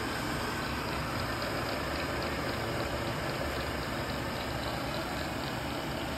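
1999 TRAK DPM 3-axis CNC mill running a demonstration program, its motors giving a steady whirring hum as the axes move.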